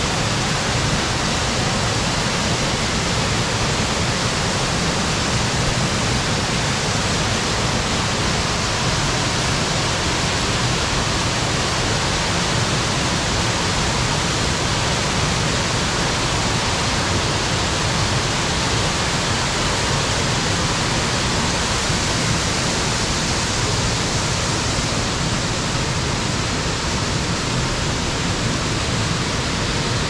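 Waterfall rushing: a steady, loud hiss of falling water that does not change.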